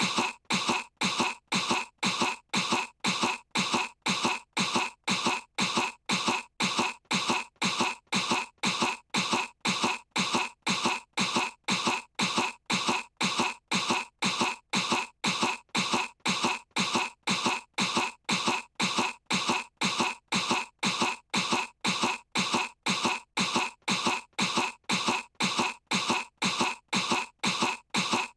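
A cartoon girl's short fake coughs, pretending to be sick, looped so they repeat evenly about twice a second.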